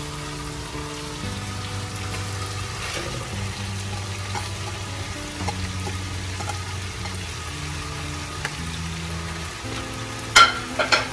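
Shrimp and onion sizzling in a pot on a gas stove as julienned bamboo shoots are added, with soft background music of sustained chords. A few sharp knocks of a plate or utensil against the pot come near the end.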